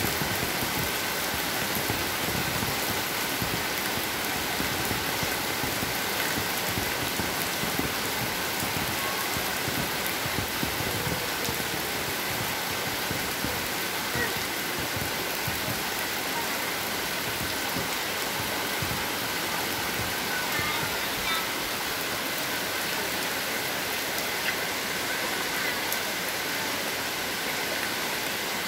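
Heavy rain falling steadily on a paved yard, puddles and the surrounding ground.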